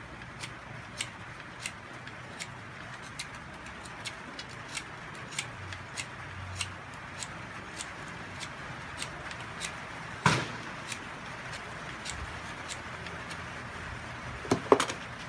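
Utility-knife blade whittling the end of a wooden strip, making short sharp clicks about every two-thirds of a second as each cut catches the wood, with a louder knock about ten seconds in. The strip's end is being tapered so it fits a drill chuck.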